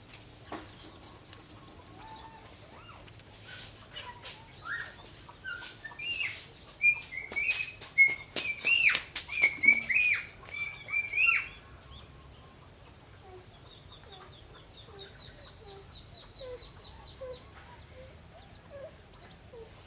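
Birds chirping and calling in short, sharp notes, busiest and loudest from about six to eleven seconds in, then a quick rattling trill and a few soft lower calls.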